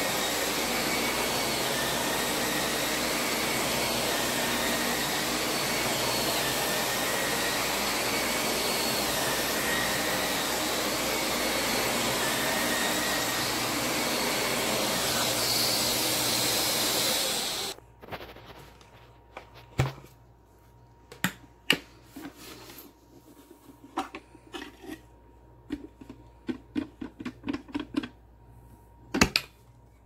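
Shark Rotator upright vacuum cleaner running steadily on plush carpet, then cutting off suddenly a little over halfway through. Scattered light clicks and taps follow.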